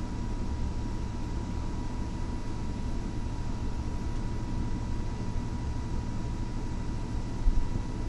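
Steady low background rumble with a faint constant whine, and a brief low thump near the end.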